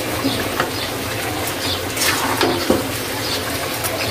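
Chicken with sliced onions sizzling steadily in oil in a blackened kadai while a metal spatula stirs it, scraping and clinking against the pan now and then. The meat is being fried down (kosha) in its own juices.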